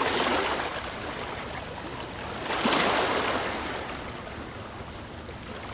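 Waves washing in on a shore: an even rush that swells twice, at the start and again about two and a half seconds in, each time fading away.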